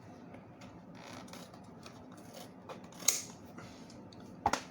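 Leatherman Raptor Rescue heavy-duty trauma shears working through thick rawhide leather. The blades make faint crunching cuts that take effort, with a sharp snip about three seconds in and a louder one near the end.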